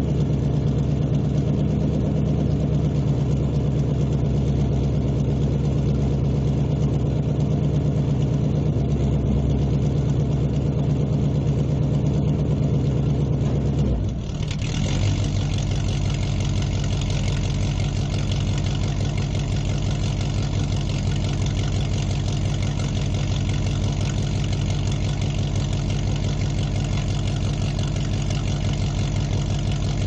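Muscle car engine idling steadily in a large room, with a low-pitched tone. A little after halfway it dips briefly and then carries on with a brighter, hissier sound.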